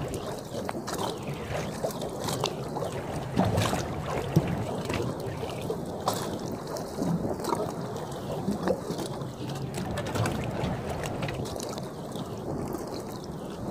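Steady low rumble and wind on the microphone, with scattered light knocks and clicks as a rubber gasket is worked into place around a water-filled manhole's bolted steel rim.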